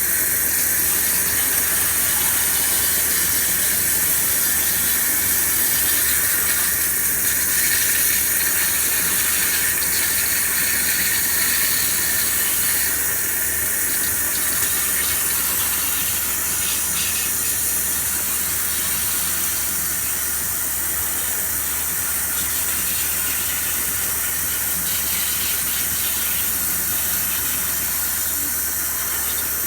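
CNC machine cutting 316 stainless steel, giving a steady high-pitched hiss that does not let up.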